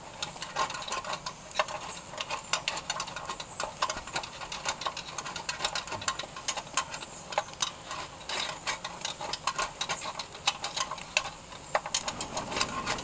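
Irregular metallic clinking and scraping as the fire is raked out of a miniature steam locomotive's firebox, hot ashes and clinker rattling down through the grate, over a faint steady hiss of steam.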